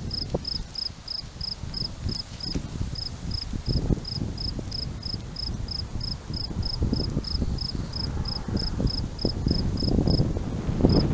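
A cricket chirping steadily, about four short high chirps a second, pausing briefly near the end. Wind buffets the microphone in low gusts underneath.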